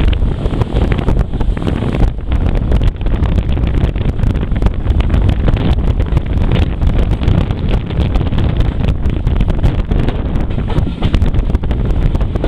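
Heavy wind buffeting the microphone held out of a moving train's window, with the train's running noise underneath.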